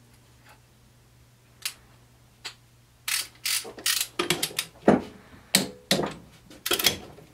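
Micrometer-style ratcheting torque wrench tightening ring gear bolts toward 80 foot-pounds. Two single clicks come first, then from about three seconds in the ratchet pawl clicks rapidly as the wrench is swung back and forth in short strokes.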